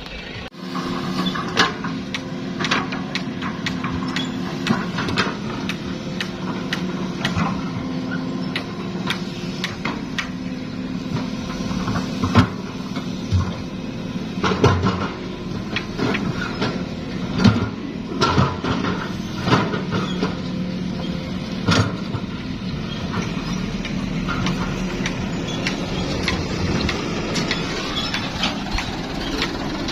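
Hitachi hydraulic excavator's diesel engine running under load, its pitch shifting as the machine works. Repeated sharp metal clanks and knocks from the bucket and soil sound over it throughout, the loudest about twelve, seventeen and twenty-two seconds in.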